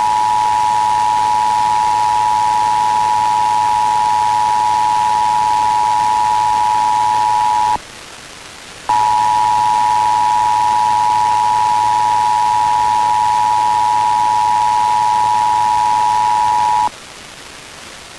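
Emergency Alert System two-tone attention signal (853 and 960 Hz sounded together), a loud steady tone. It breaks off for about a second roughly eight seconds in, then sounds again for about eight more seconds. It announces a Required Monthly Test, whose spoken message follows the tone.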